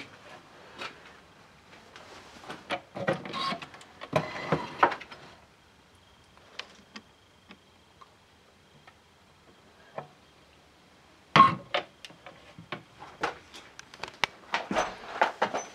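Scattered clicks, knocks and rustling from someone moving about a workshop with a handheld camera, with one louder knock about eleven seconds in. A faint steady high tone runs through the middle. No motor or compressor is running.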